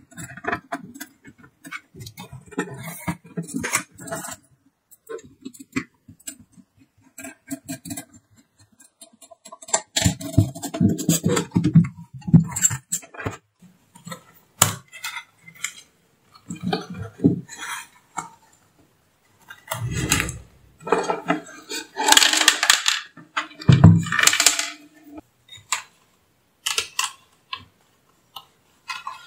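Steel amplifier case and its circuit boards being handled and taken apart: irregular metallic clinks, knocks and scrapes, with a screwdriver working at the case. The clatter comes in louder clusters about ten seconds in and again past the middle.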